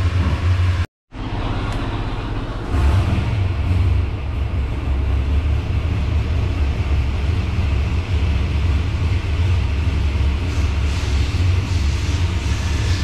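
522 cubic inch big-block Chevrolet V8 running steadily on an engine dyno, a deep even rumble. The sound cuts out for a moment about a second in, and from about three seconds in it is somewhat louder.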